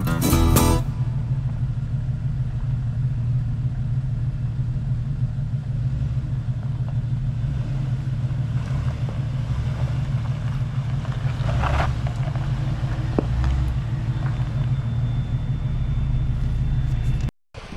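Steady low engine rumble of an off-road vehicle crawling slowly along a dirt trail. The sound cuts off abruptly near the end.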